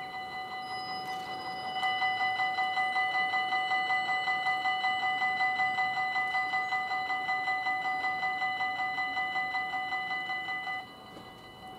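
Railway level crossing warning bells ringing in a fast, even rhythm of about four strokes a second while the half-barriers lower. The ringing grows louder about two seconds in, and most of it cuts off near the end once the barriers are down, leaving fainter ringing.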